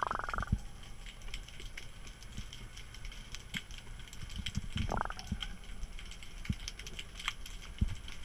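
Underwater ambience picked up by a submerged camera: a steady low rumble with scattered fine clicks and crackles, and two brief louder noises, one at the start and one about five seconds in.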